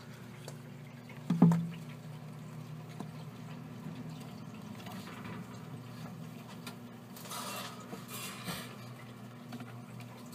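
Baby hamsters scrabbling in a plastic exercise wheel and wood-shaving bedding: small ticks and knocks, with a sharp knock about a second and a half in and a burst of rustling around seven to eight seconds, over a steady low hum.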